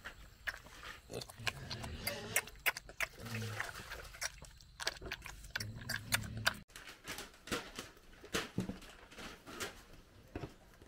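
A small pig eats wet slop from a metal bowl: quick wet smacking and slurping clicks broken by a few short low grunts. About two-thirds of the way in the sound changes abruptly to scattered clicks and rustles.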